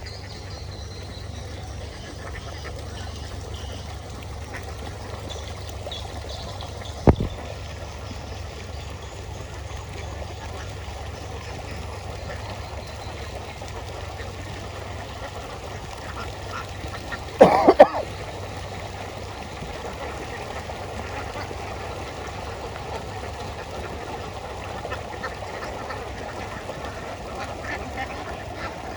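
A flock of domestic ducks quacking over a steady background hiss. A single sharp knock comes about a quarter of the way in, and a brief cluster of loud, sharp sounds a little past the middle.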